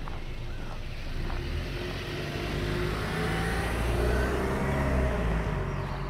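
A car driving past on the street. Its engine and tyre noise build to a peak about four to five seconds in, then drop in pitch and fade as it goes by.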